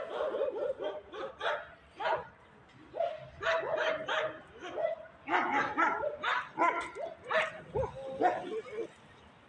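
A dog barking off and on in rapid runs of short barks, starting suddenly, with a brief pause about three seconds in.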